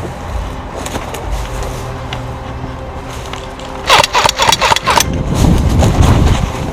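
Airsoft gun firing a short rapid burst, about seven shots in a second, about four seconds in, followed by a low rumble.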